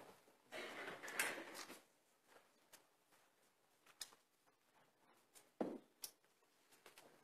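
Near-quiet room with a brief rustle about a second in, then a few isolated soft clicks and knocks, like people shifting and handling things.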